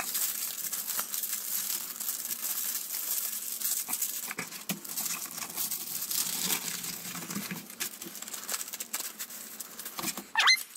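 Small plastic zip bags of diamond-painting drills crinkling and rustling with many small clicks as they are handled and put away.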